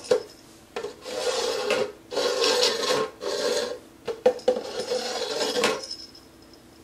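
Upturned plastic cups being slid around on a tile floor, scraping in four stretches of up to about a second and a half each, with a few knocks as they are set down.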